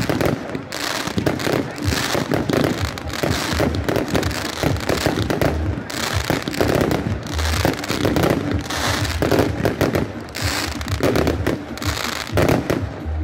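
Fireworks: ground fountains spraying sparks, with a dense, continuous crackling and popping and occasional low thumps.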